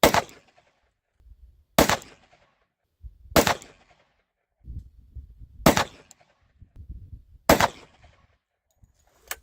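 Five shots from a Glock G29 Gen 5 10mm pistol, fired one at a time about two seconds apart, each a sharp report with a short tail.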